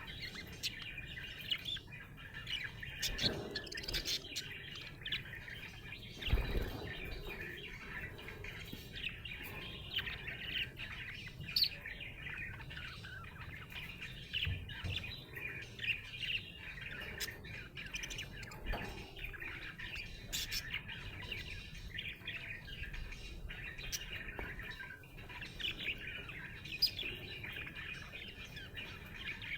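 Budgerigar chirping continuously in quick, busy runs of short high chirps, with a few soft knocks in between.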